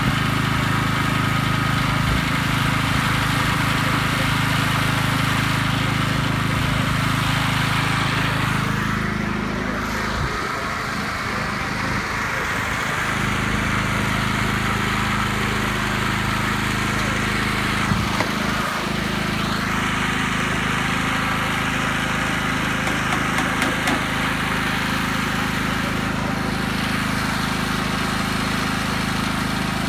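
Gas-engine pressure washer running steadily, with its engine note shifting a couple of times as the load changes.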